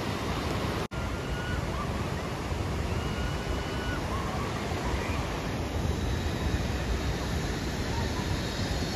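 Steady outdoor rushing noise, with a faint thin whine that comes and goes and a momentary dropout about a second in.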